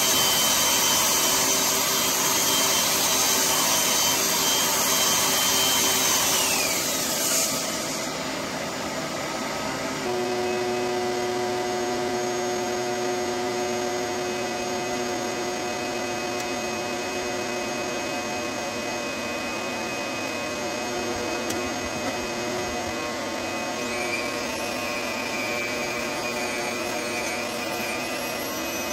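Electric power tool sanding plaster, a steady vacuum-like whine. About seven seconds in, the motor's high whine drops in pitch and the sound gets quieter, then it runs on steadily.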